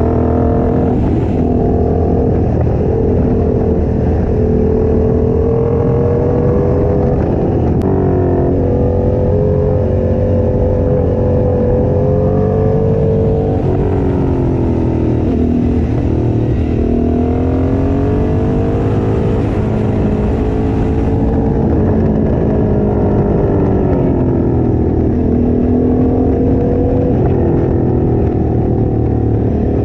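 Motorcycle engine heard from the rider's seat at road speed, its pitch rising and falling several times with throttle and gear changes, over a steady rush of wind noise.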